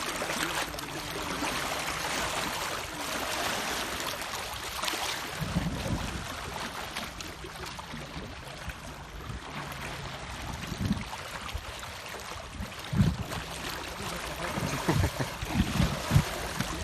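Seawater splashing and swishing, with low gusts of wind buffeting the microphone that grow more frequent near the end.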